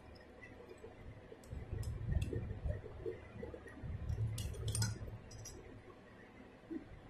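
Light metal clicks and clinks of a small tin-can saw blade and its nut being handled and taken off a mini rotary tool's shaft, with dull handling thumps around two seconds and again four to five seconds in.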